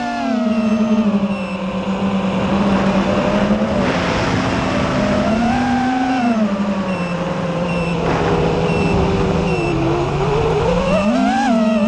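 FPV quadcopter's electric motors and propellers whining, the pitch sliding down and up as the throttle changes, with a sharp rise near the end.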